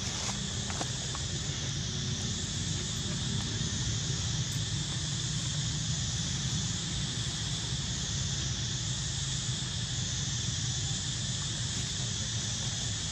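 Steady outdoor ambience: a high hiss that swells and fades about every two seconds, over a constant low rumble.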